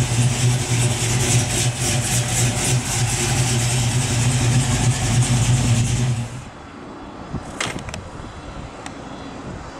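A Camaro SS's LS3 V8 idling steadily, then shutting off about six and a half seconds in. A single sharp click follows about a second later.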